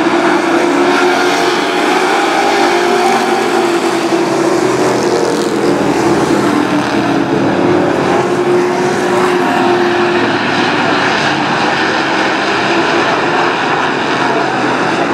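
A pack of short-track pickup race trucks running at racing speed, their engines blending into one steady, loud drone whose pitch wavers slightly as the trucks circle the oval.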